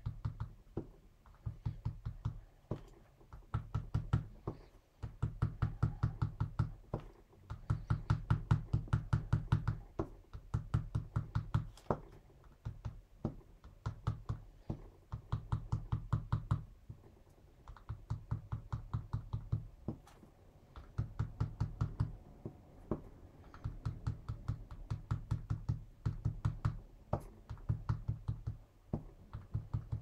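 A small pad dabbing white pigment ink onto card stock on a tabletop: rapid soft taps, several a second, in bursts of one to two seconds with short pauses between.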